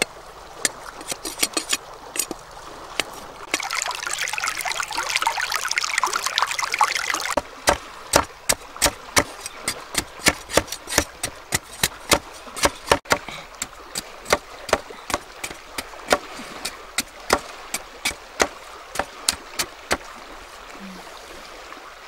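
Water pouring for about four seconds, followed by a long run of sharp, irregular clicks and taps, roughly two or three a second.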